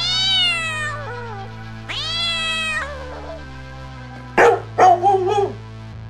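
A cat meowing twice, two drawn-out high meows that fall slightly in pitch, then a dog barking about three times in quick succession near the end, over background music.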